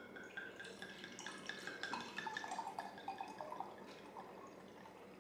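Wine being poured from a bottle into a glass: a faint gurgling pour with light glassy clinks, lasting about four seconds.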